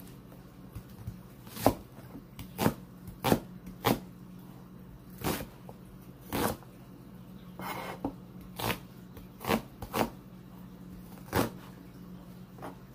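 A meat cleaver slicing through an onion on a plastic cutting board: about a dozen sharp knocks of the blade on the board at uneven spacing, with a short scrape partway through.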